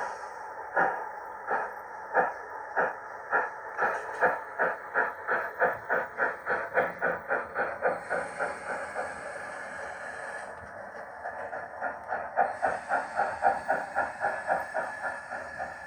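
Sound decoder in a 7mm-scale GWR steam railmotor model playing steam exhaust chuffs over a steady hiss through its small loudspeaker. The chuffs quicken from about one to about four a second as it gets under way, die away for a couple of seconds about ten seconds in, then return.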